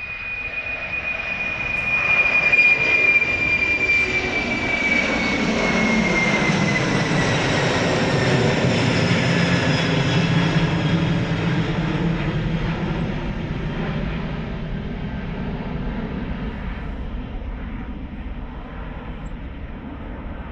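Four-engined Boeing 747 jet climbing out at take-off power and passing low overhead. Its high engine whine slides down in pitch as it goes past, loudest a couple of seconds in, and then the deep engine roar slowly fades as it climbs away.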